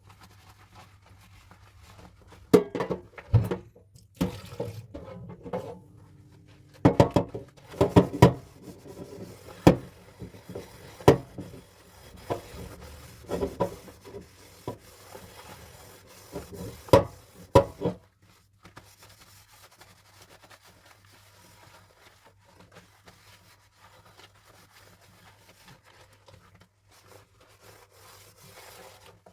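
Dishes being handled and washed: irregular clinks and knocks of crockery and cutlery, some with a short ring, for the first two-thirds or so. After that they stop, leaving only a faint soft noise over a low steady hum.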